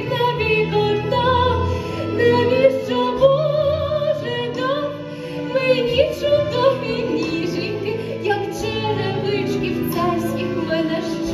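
A woman singing a Ukrainian song with vibrato over an instrumental accompaniment, in a stage musical performance.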